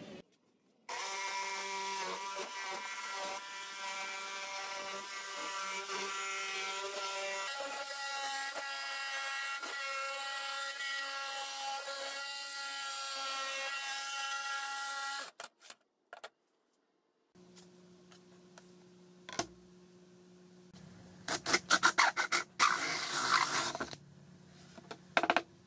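Cordless jigsaw running steadily, sawing through plywood for about fourteen seconds with a constant motor whine that shifts pitch about halfway through. After a break, a cordless drill with a hole saw bores through the plywood in loud, rough bursts for a few seconds.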